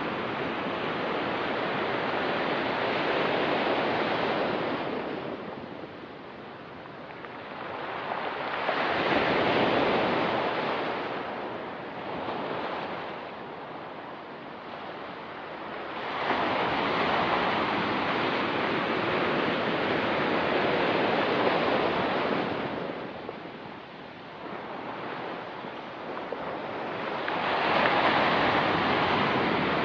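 Ocean surf on a rocky, pebbly beach: waves surging in and washing back in four slow swells, with quieter lulls between them, the longest swell lasting about six seconds.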